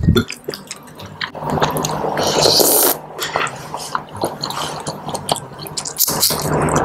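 Close-miked wet eating sounds: saucy instant noodles of seblak being slurped and chewed, with many small moist smacks and clicks and a longer slurp around the middle.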